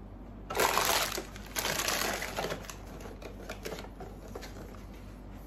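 Toy packaging rustling and crinkling as it is rummaged through and handled by hand: two loud stretches in the first half, then fainter crackles.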